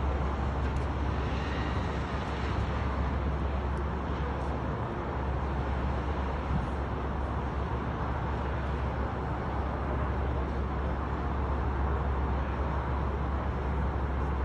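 Steady road-traffic noise with a continuous low rumble.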